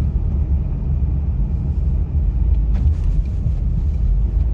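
Kia Sorento XM driving, heard from inside the cabin: a steady low road rumble, with a short cluster of faint creaking knocks from the suspension about three seconds in. The owner traces the noise to the anti-roll bar bushings sitting loose on a worn bar, leaving a gap.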